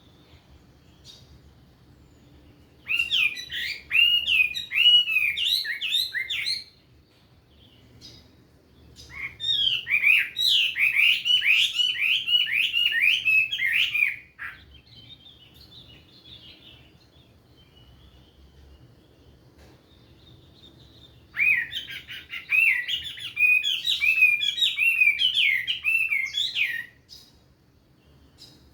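Chinese hwamei singing in three loud bursts of rapid, repeated whistled phrases, with faint chirps in the pauses between bursts.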